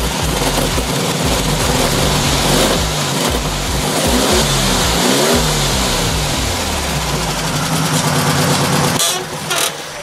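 1972 Volkswagen Super Beetle's air-cooled flat-four engine running again after a restart on fresh gasoline. Its pitch rises and falls through the middle as it is revved, and it drops back near the end. It idles pretty weak, still short of a tune-up.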